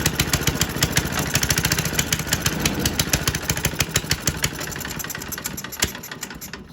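Briggs & Stratton Model Y single-cylinder washing-machine engine running with no exhaust fitted, firing about eight or nine times a second. It slows and fades from about four seconds in and dies out near the end.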